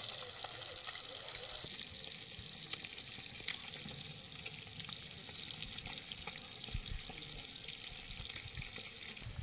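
Pieces of katla fish frying in mustard oil in an iron kadai: a steady sizzle, with a couple of low knocks in the second half.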